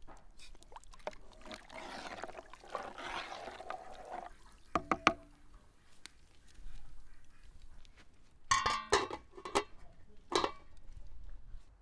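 Rice poured into a large aluminium pot of boiling water, a hissing, splashing wash over a couple of seconds. Then come sharp metallic knocks with a brief ring, loudest near the end, as the aluminium lid is handled and set on the pot.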